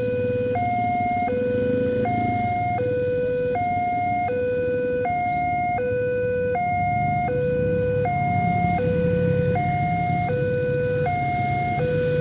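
Railway level-crossing warning siren sounding a steady two-tone alternation, a lower and a higher tone switching about every three-quarters of a second, over a low rumble.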